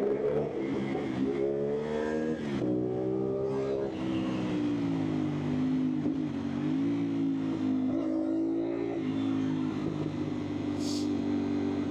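CFMOTO 450SR parallel-twin engine through an aftermarket exhaust, revving up through gear changes in the first few seconds. Its pitch then falls and settles into a steady running note.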